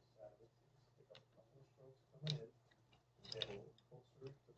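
Faint, scattered clicks and knocks with quiet gaps between them; the two loudest come a little past halfway.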